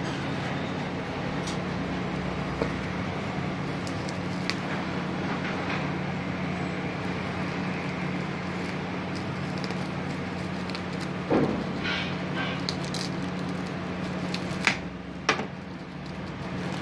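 Plastic bubble-wrap packaging rustling and crinkling as it is cut and pulled open by hand, with a few sharp crackles and clicks, over a steady low hum and background noise.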